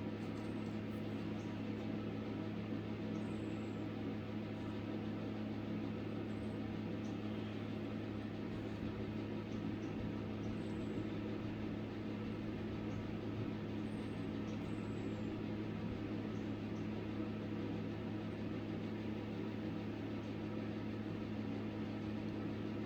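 A steady low machine hum with a faint hiss underneath, unchanging throughout, and a few faint short high chirps now and then.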